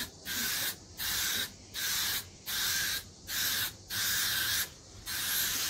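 Aerosol can of automotive spray paint hissing in short, even bursts, about seven of them, a little under one a second, as the nozzle is pressed and released.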